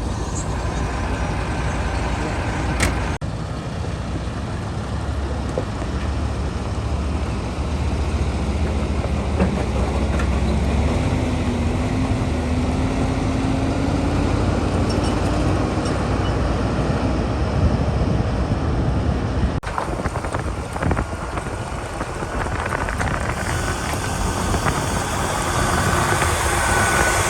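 Heavy diesel engine running steadily, with its pitch rising slowly in the middle as it revs up; the sound changes abruptly twice.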